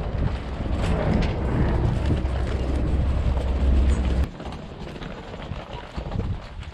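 Wind buffeting the microphone in a loud low rumble for about four seconds, then it drops away suddenly and the scuffing footsteps of a group of walkers, with luggage wheels, are heard.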